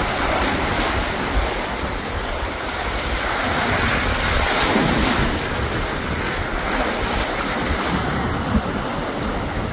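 Sea waves breaking and washing over jetty rocks, the surge swelling about four seconds in, with wind buffeting the microphone.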